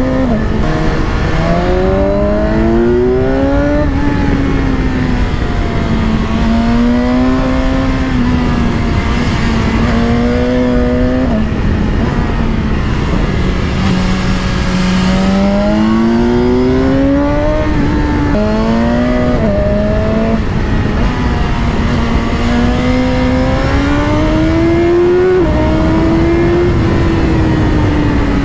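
BMW S1000XR's inline-four engine under way, its revs climbing and falling over and over as the rider accelerates and eases off, with several quick upshifts that drop the pitch suddenly.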